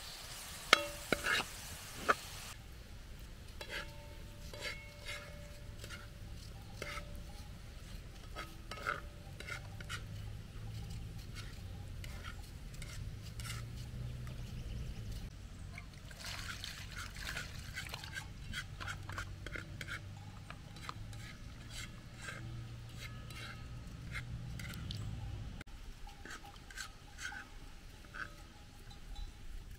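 A cooking utensil clinking and scraping against a pot during stirring, heard as short irregular clicks with a few louder knocks in the first two seconds. Under it runs a low steady hum that cuts off a few seconds before the end.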